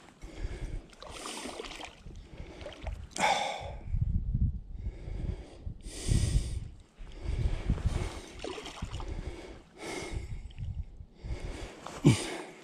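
A man breathing heavily, with loud, noisy breaths about every one to two seconds as he strains against a hooked trout on a fly rod, and a sharper, louder burst near the end.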